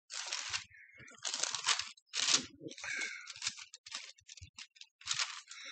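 Paper pages rustling in a series of short, irregular swishes as they are turned over to find a passage.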